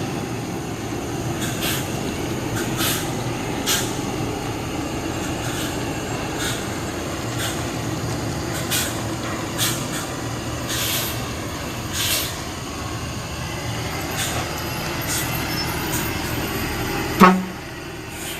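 An intercity bus driving in traffic: a steady engine and road rumble, broken by short hissing bursts about once a second or so. About a second before the end comes a brief loud tone, the loudest moment, after which the rumble drops away.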